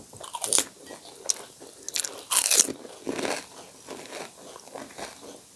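Crisp fried pani puri shells crunching as they are bitten and chewed, in a run of irregular crackling crunches; the loudest comes about two and a half seconds in.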